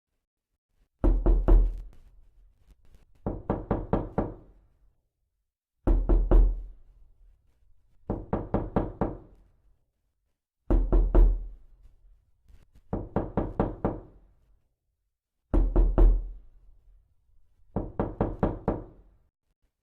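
Knuckles knocking on a wooden door in quick bursts of about four or five raps, two bursts close together and then a pause, repeating evenly as a loop. The first burst of each pair is louder, with a deeper thud.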